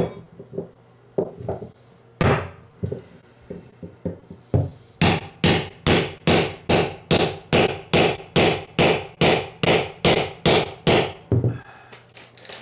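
Hammer blows: a few scattered strikes, then a steady run of about two and a half blows a second for several seconds, stopping near the end.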